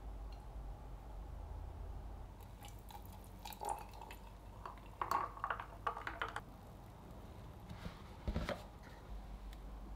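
Ice cubes clinking in a glass as liquid is stirred and poured over them: scattered light clicks and knocks, clustered about three to six seconds in and again near eight seconds.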